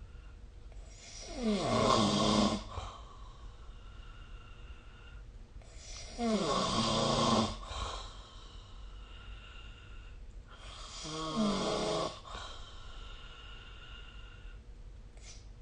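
A sleeper snoring: three long snores about five seconds apart, each dropping in pitch as it starts, with faint clicks near the end.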